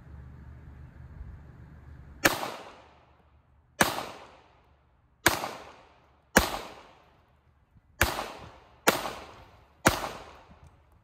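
Seven single gunshots fired at an unhurried pace, about one to one and a half seconds apart, each ringing out with a tail of echo, as the freshly zeroed sight is checked.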